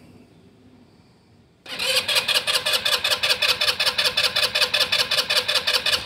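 Ice Bear gas scooter's electric starter cranking the engine, which turns over in a fast, even rhythm but does not catch. It begins about two seconds in and keeps going: the scooter won't start, although the tank is full.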